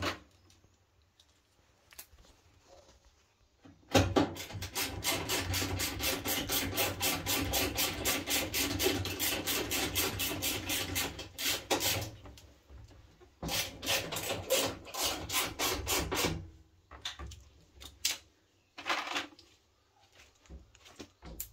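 Rapid back-and-forth scraping strokes, several a second, in one long bout of about seven seconds and a shorter one of about three, then a few scattered strokes near the end.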